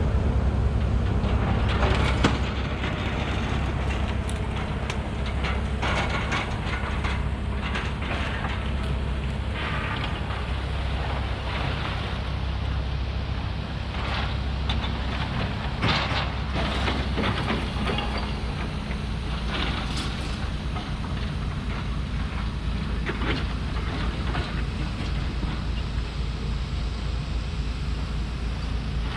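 Heavy diesel demolition machinery running with a steady low rumble, with scattered knocks and clatters, such as rubble or steel being moved.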